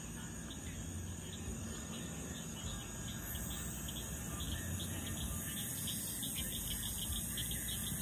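Night insects chirping in a steady, rapid rhythm, with a low rumble underneath.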